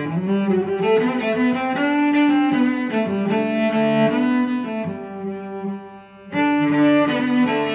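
Instrumental background music played on bowed strings, with a cello-like low line. It fades briefly about six seconds in and then comes back in full.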